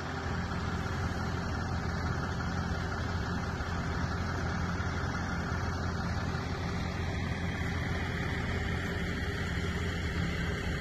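Truck running at a steady speed, with a steady low engine and road drone that does not change.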